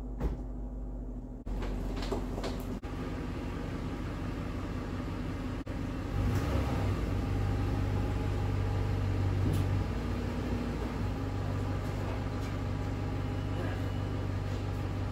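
A steady low mechanical hum from a running engine or motor, broken by a few brief dips and growing a little louder partway through.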